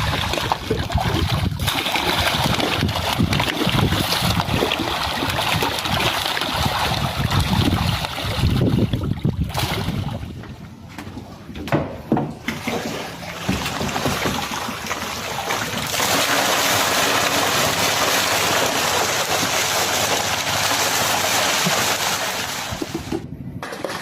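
Water splashing and sloshing as groupers thrash at the surface of a net-cage pond, snatching fish thrown in for them. It is choppy with many sharp splashes at first, and turns into a steadier rush of water for several seconds later on.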